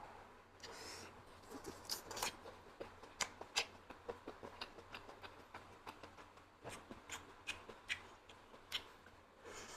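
Close-miked mukbang eating sounds: chewing and lip-smacking on meat-stuffed apple snails, heard as irregular sharp clicks and smacks.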